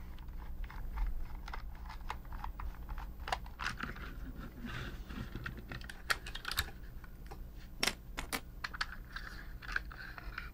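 Scattered light clicks and taps of a plastic toy robot being unscrewed and taken apart by hand, its plastic shell and parts knocking together.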